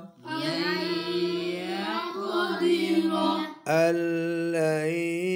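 Chanted Quran recitation: a voice intoning a phrase in a rising, wavering melody. After a brief pause just past the halfway point, it holds one long steady note.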